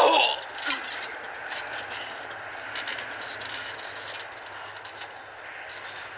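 A body slammed onto a backyard trampoline: a loud landing with a short falling squeal right at the start and a second smaller hit just under a second later, then scattered creaks and clicks from the trampoline springs and mat as the wrestlers move around on it.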